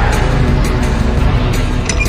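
Music with a heavy bass line.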